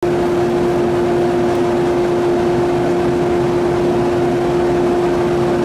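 Electric train standing at a station platform, giving a steady hum over a constant rushing noise.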